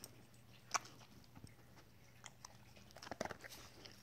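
A dog eating treats: a few scattered sharp crunches and clicks, the loudest under a second in and a quick cluster just after three seconds.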